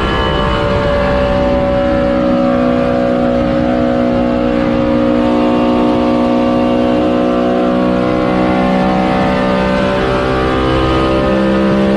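Race-car engine sound effect: the engine holds a steady, high-revving note with a rich stack of overtones. The pitch stays nearly constant, dipping slightly just after the start and lifting a little near the end.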